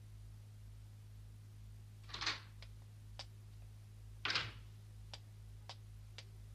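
Soft footsteps of a nun crossing a quiet room, short sharp clicks about half a second apart, with two brief rushes of noise about two and four seconds in, over a steady low hum.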